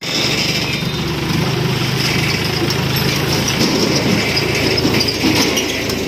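Farm tractor's diesel engine running steadily as it pulls a trailer slowly past.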